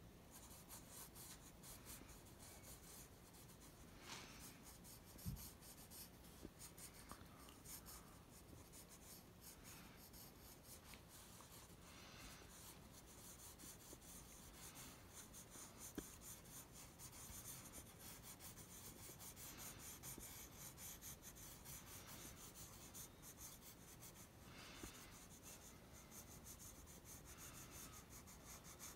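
Graphite pencil scribbling on paper: quick, faint, scratchy strokes that stop and start. There is a single soft knock about five seconds in.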